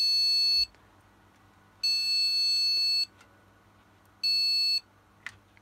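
PC motherboard speaker giving repeated long, high-pitched POST beeps, each about a second long with about a second's gap. The last beep is cut short. The owner takes these beeps for the sign of a bad stick of RAM.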